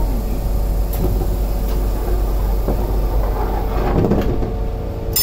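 Toden 7700 series tram standing at a stop with a steady hum from its equipment while its passenger door slides shut, about three to four seconds in. Near the end comes a sharp metallic click with a brief ring.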